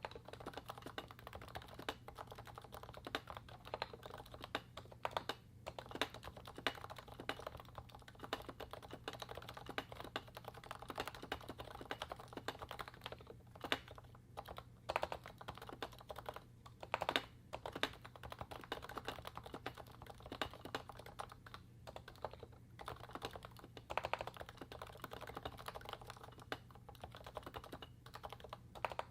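Continuous fast typing on a Realforce 87U keyboard with Topre 55 g switches, its sliders swapped for Novatouch sliders lubed with Tribosys 3204, under PBT DEV/TTY MT3 keycaps. A few heavier strokes stand out among the steady run of key presses.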